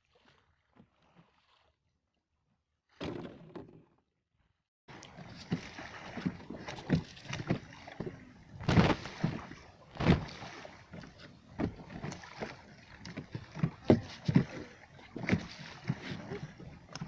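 Water sloshing and slapping against a small fishing boat's hull in irregular splashes and knocks, starting about five seconds in after a near-silent start.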